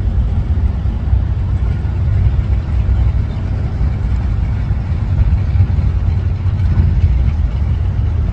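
Drag-racing muscle cars' engines idling at the starting line, a steady low rumble.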